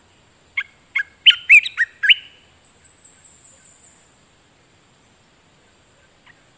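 Olive-winged bulbul singing a quick phrase of about six loud, clear gliding notes, beginning about half a second in, followed by a few fainter softer notes until about four seconds in. A thin, steady high-pitched hum runs behind.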